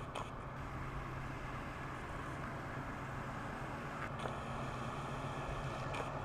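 1967 Chevrolet Chevelle SS's 402 big-block V8 running through headers and dual exhaust as the car drives past, a faint, steady low engine note that grows a little louder as it approaches.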